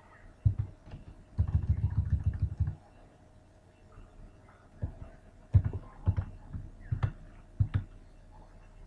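Computer keyboard and mouse clicks picked up as low thumps. A quick run of keystrokes lasts about a second, then scattered single clicks follow.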